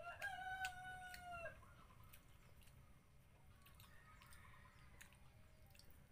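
A rooster crowing once near the start, a single call of about a second and a half that holds its pitch and drops off at the end. Scattered faint clicks follow.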